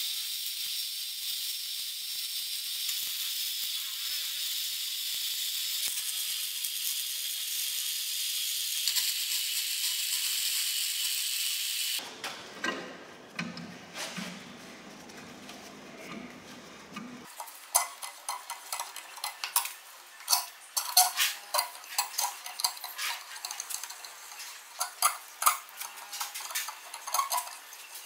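Electric arc welding on steel, a steady crackling hiss, for the first twelve seconds. Then a steel bench vise's screw is cranked by its sliding T-handle bar, with many irregular metal clinks and clacks as the bar shifts and knocks.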